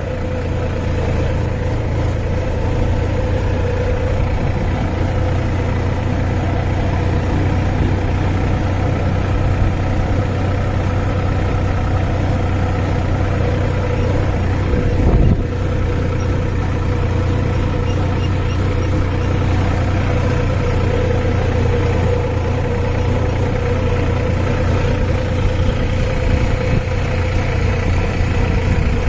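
Farm tractor engine running steadily, with one brief knock about halfway through.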